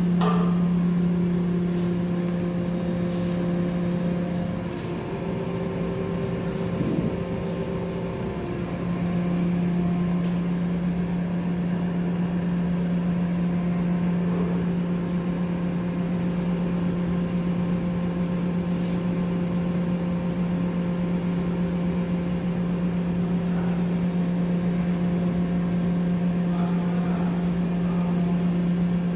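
A 10 hp variable-speed (VFD) rotary screw air compressor running with a steady hum. The hum weakens for a few seconds from about four and a half seconds in, then comes back steady.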